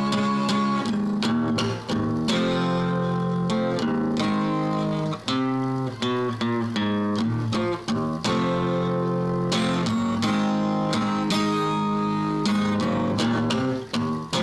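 Acoustic guitar strummed, ringing chords with a steady run of strokes and short breaks at the chord changes.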